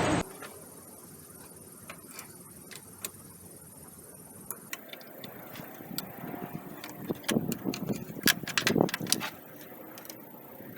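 Light metallic clicks and clinks of metal parts and hand tools being handled during a power steering pipe job. They are sparse at first, then come as a denser run of clicks in the second half.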